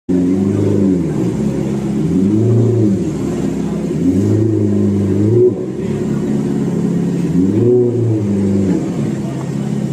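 Ferrari F430's V8 engine being revved in several short blips, the pitch rising and falling back between them.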